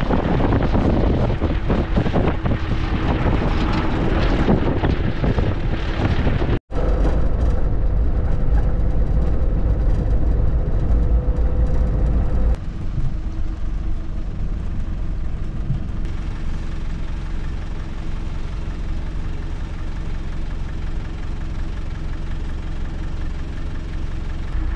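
Truck driving, its engine and road noise heard from inside the cab, in three short edited stretches. The first stretch is a rougher, crackling rumble; after a brief dropout about six and a half seconds in it becomes a heavy, steady low rumble, then drops to a quieter even drone about twelve seconds in.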